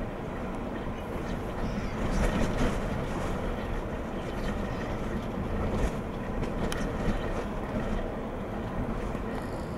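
Seatruck Pace ro-ro freight ferry passing on the river: a steady low rumbling, rushing noise with small swells in loudness and no distinct engine tone.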